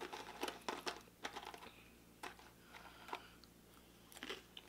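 Crunching on crispy fried bow-tie pasta chips: a quick run of sharp crackles in the first second or so, then scattered ones.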